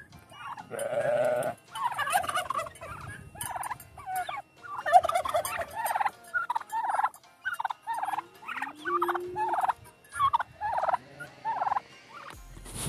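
Turkeys gobbling, one rapid warbling gobble after another through the whole stretch.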